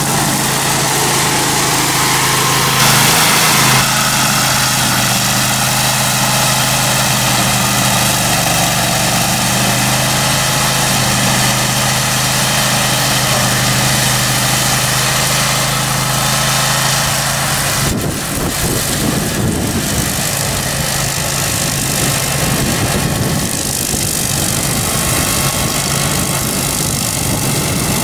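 Grillo Climber 9.22 ride-on mower's 22 hp engine running steadily while the mower cuts tall dry grass, briefly louder about three seconds in. About eighteen seconds in the steady engine tone gives way to a rougher, noisier mix.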